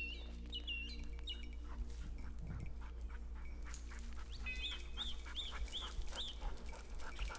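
English setter whining: a run of about five short, high whimpers a little past the middle, over scattered rustles and clicks.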